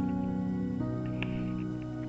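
Background music: soft, ambient, new-age-style chords held and changing about a second in, with faint ticking accents.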